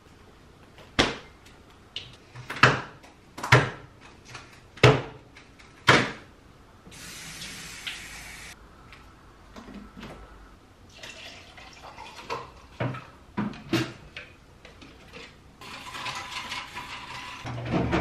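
A run of loud knocks about a second apart, then a kitchen tap running briefly, lighter clatter at the counter, and the tap running again near the end.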